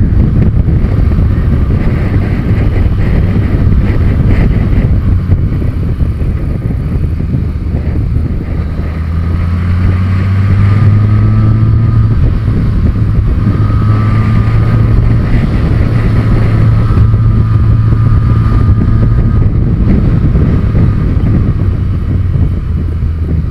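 Motorcycle engine running at track speed, heard under heavy wind rush on the camera microphone. The engine note climbs about nine seconds in, dips briefly near twelve seconds, then holds steady.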